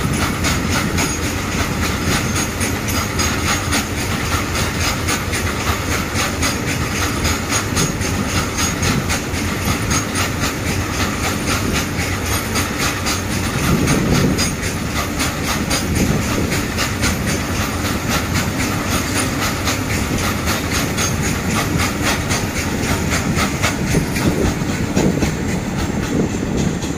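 Loaded freight train of covered coal wagons rolling past, with a steady rumble of wheels on rail and a regular clicking as the wheels cross the rail joints. There are a few heavier knocks midway and near the end.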